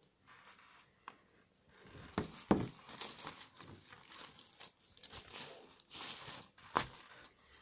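Thin paper and plastic packaging crumpled and unfolded by hand: faint crinkling and rustling that starts about two seconds in, with a few sharper crackles.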